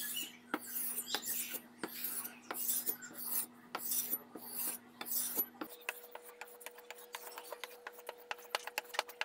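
Steel cleaver blade being sharpened by hand on a 400-grit sharpening stone, rasping strokes about two a second. About five and a half seconds in it changes to quicker, lighter strokes on a 1500-grit stone, heard as a rapid run of short scrapes.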